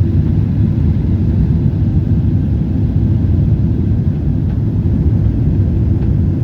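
Cabin noise of a Boeing 777-300ER in the climb after takeoff: its GE90 engines and the rushing air make a steady low rumble inside the cabin.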